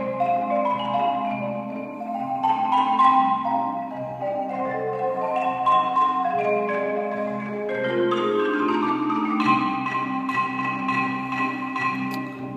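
Marimba solo playing quick runs of struck notes over sustained low orchestral accompaniment, with a run falling in pitch about eight seconds in.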